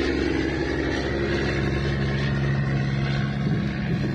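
A boat motor running with a steady drone.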